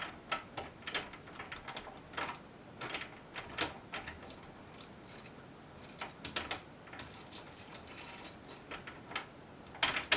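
Two-lever tryout key working in a mortice lock: an irregular run of small metallic clicks and rattles as the key lifts the levers and throws the bolt, with two louder clicks near the end.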